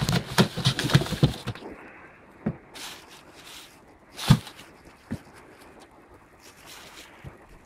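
Knife cutting through a duck carcass at the neck, giving a quick run of crackling clicks for about the first second and a half, then a few single knocks, the loudest about four seconds in.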